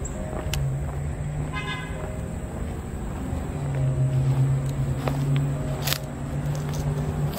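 Background music of sustained low notes that step to a new pitch every second or two, with a short higher tone just before two seconds in.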